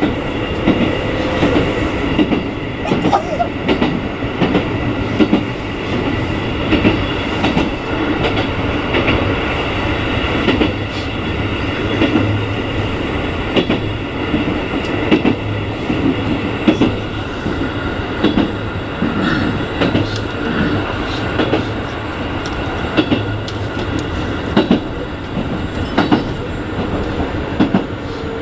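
Keikyu 1500 series electric train running along the track, heard from the cab: steady rolling noise with irregular clicks and clunks of the wheels over rail joints and points, under a steady whine. A motor whine rises slightly and stops about a second and a half in, leaving the train coasting.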